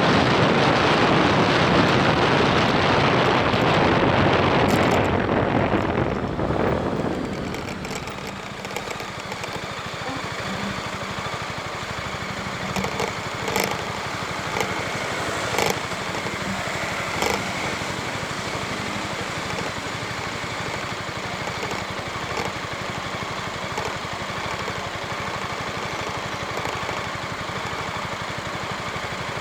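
Motor scooter engine running, with loud wind rush on the action camera microphone for the first six seconds or so, then a quieter steady engine sound. A few sharp clicks come in the middle.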